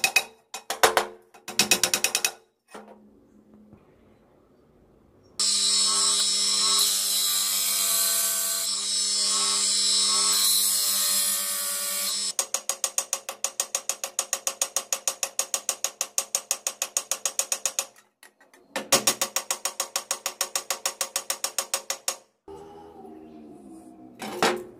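A few hammer taps on the steel cleaver's handle rivet, then a bench grinder running with a sanding disc pressed against the steel blade: a steady motor hum with a grinding hiss. This gives way to a rapid rhythmic chatter of about seven beats a second, with a brief break partway through.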